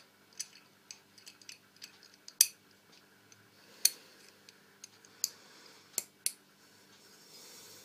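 Sharp metallic clicks and taps of the safety lever being pressed back into the slide of an MP-654K air pistol and worked by hand, coming at irregular intervals, the loudest a little over two seconds in.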